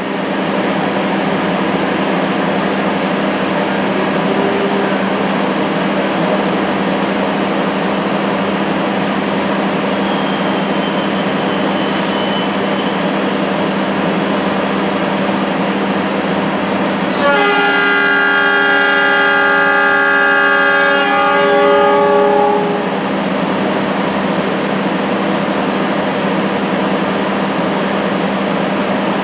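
A diesel train's multi-tone horn sounds one long blast of about five seconds, over the steady hum of a train idling at the platform.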